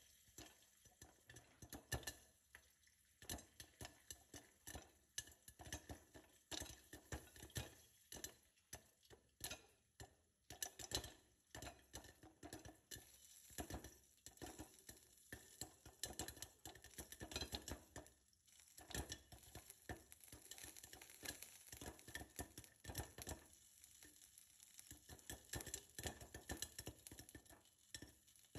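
Popcorn kernels popping in a lidded pot, with irregular sharp pops and ticks coming several times a second.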